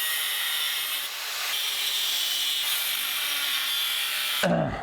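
A steady, loud hiss, strongest in the high range, that cuts off sharply about four and a half seconds in.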